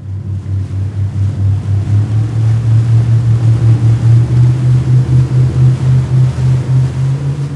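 Motorboat engine running with a low hum that climbs slowly in pitch, pulsing about five times a second and swelling over the first couple of seconds.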